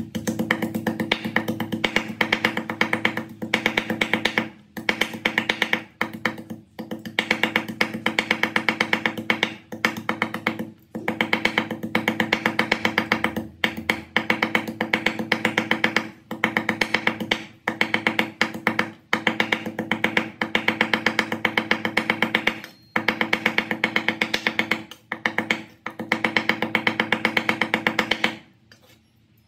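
Cleaver rapidly chopping raw meat into mince on a wooden chopping board: fast runs of knocks, each a second or two long, broken by short pauses, stopping shortly before the end.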